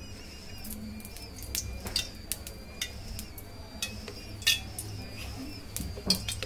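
Irregular sharp clicks and ticks from an empty aluminium kadai heating on the stove, coming thicker and louder near the end, over a steady low hum and faint high chirping.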